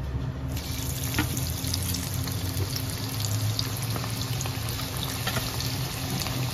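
Marinated jackfruit pieces deep-frying in hot refined oil in a kadai: a steady sizzle with small pops, starting up about half a second in.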